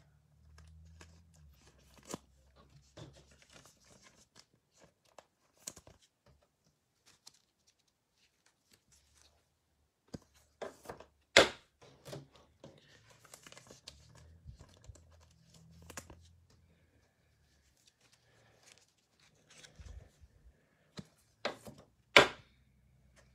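Trading cards and a plastic card-pack wrapper being handled: scattered quiet rustles, taps and clicks, with two sharper, louder clicks about halfway through and near the end, the last as a foil pack is picked up.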